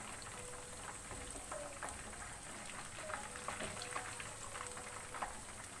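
Hot frying oil sizzling steadily, with scattered small crackles and pops, from chicken pieces deep-fried a second time on high heat for extra crispness.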